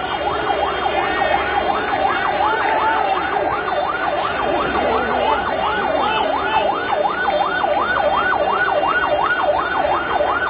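Siren yelping in fast rising-and-falling sweeps, about three a second, over the noise of a crowd.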